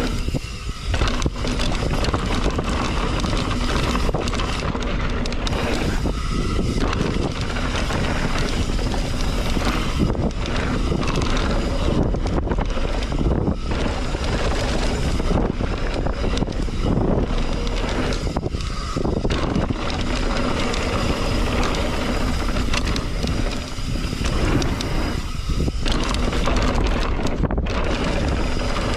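Mountain bike ridden fast down a dirt jump trail: steady wind rush on the microphone over the tyres rolling on the dirt, with a few brief dips in the noise.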